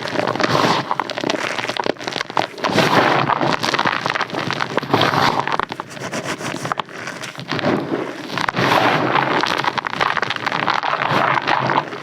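Close-miked crunching and crackling, a dense run of crisp snaps that swells and eases every couple of seconds.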